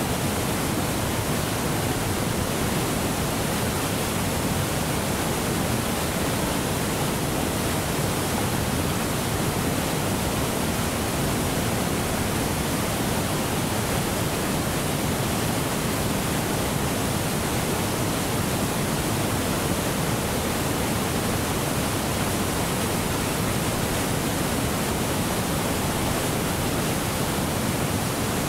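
Big Bend Falls on the Chattooga River: a large volume of white water pouring over a wide rocky cascade. The water makes a steady, unbroken rushing sound.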